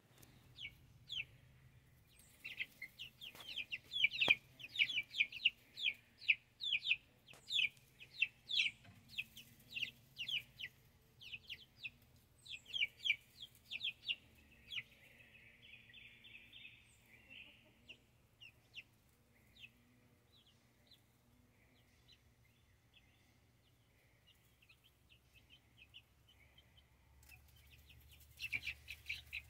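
Young chickens peeping: rapid runs of short, high, falling peeps, thickest in the first half, thinning to occasional peeps in the middle, then a fresh flurry near the end.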